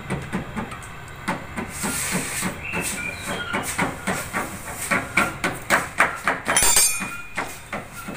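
Rapid, uneven metallic clicks and knocks, several a second, from hand work on a truck cab's steel body and its jacking gear. A brief ringing metal clatter comes near the end.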